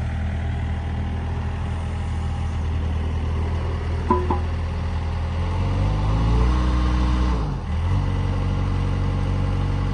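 Wacker Neuson 3503 mini excavator's Yanmar 32 hp diesel engine running steadily, with a brief high chirp about four seconds in. Past halfway the engine's pitch shifts and it runs louder for a couple of seconds, then settles at a steady speed.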